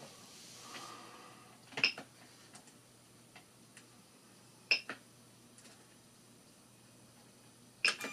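Three sharp, short clicks spaced about three seconds apart, over a faint low hum; nothing moves between them.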